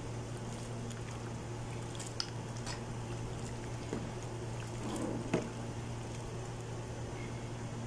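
A metal ladle stirring thick, creamy macaroni soup in a stainless steel pot, with soft wet squelches and a few light clinks of ladle on pot, over a steady low hum.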